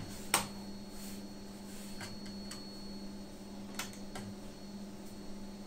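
A few small clicks and taps of a screwdriver, screw and fingers against a MacBook's bottom cover while a screw is fitted, the sharpest about a third of a second in, over a steady low electrical hum.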